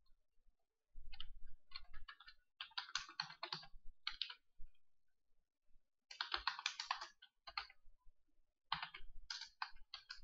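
Keystrokes on a computer keyboard, typed in about four short runs with pauses between them.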